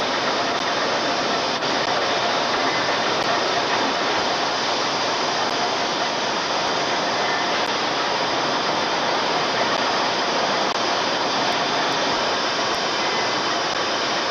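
Steady, loud din of shovel-factory machinery on the shop floor: a constant, even roar with no separate strikes or rhythm standing out.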